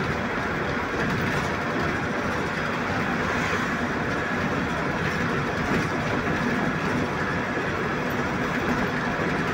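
Steady engine and road noise heard from inside a moving vehicle's cab as it drives along.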